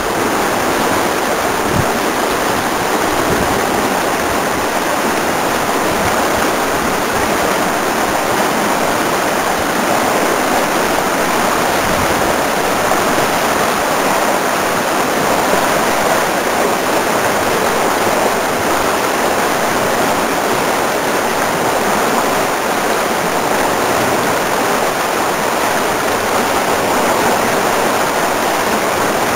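Steady rush of whitewater pouring through a creek rapid's chute.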